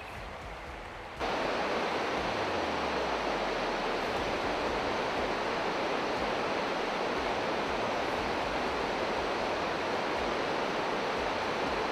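Fast river water rushing over rocks in rapids: a loud, steady rush that starts abruptly about a second in, after a quieter first second.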